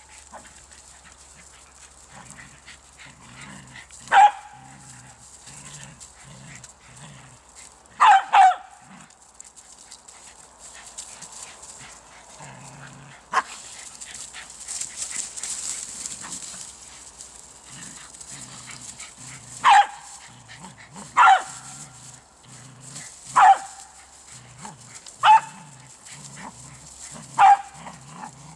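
A poodle barking during play: about eight sharp single barks, a few seconds apart, with a quick double bark about eight seconds in and the barks coming more often in the last ten seconds.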